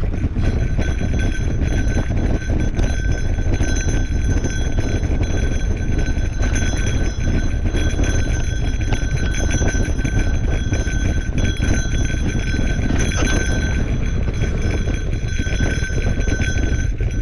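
Mountain bike rolling along dirt singletrack: the tyres rumble over the ground and the bike rattles and knocks on the bumps, with a thin high-pitched buzz over it.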